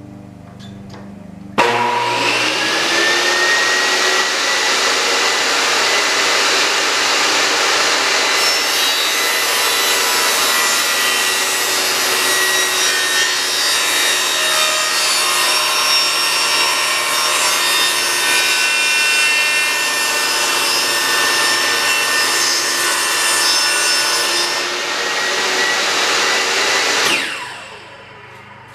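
Makita 2703 table saw's universal motor switched on, quickly winding up to speed and running steadily with a high whine, then switched off near the end and spinning down. It is a test run of a salvaged saw, and it sounds healthy.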